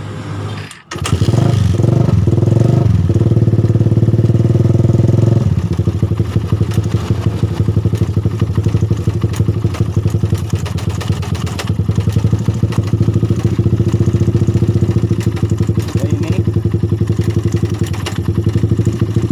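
Suzuki Satria FU's single-cylinder engine starting about a second in. It runs fast for a few seconds, then settles into a steady idle with a rough ticking around the cylinder head, which the mechanic suspects is a slack cam chain from a damaged cam chain tensioner.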